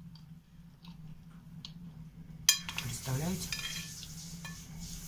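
Metal teaspoon scraping and clinking against a china plate while scooping chocolate cake, with one sharp clink about halfway through and a few lighter taps after it.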